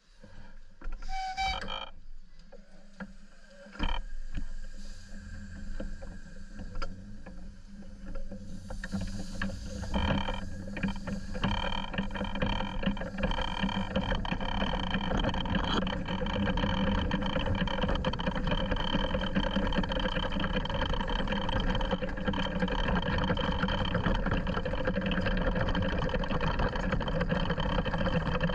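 Miniature 7¼ in gauge steam locomotive pulling away and running along the track: steady mechanical running and rail noise that builds over the first fifteen seconds and then holds even. A single sharp knock about four seconds in.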